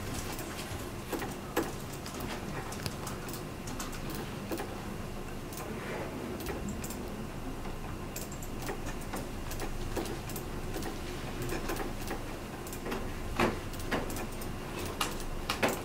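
Computer mouse clicking at an irregular pace, left and right clicks, over a steady faint hum; a few louder clicks come near the end.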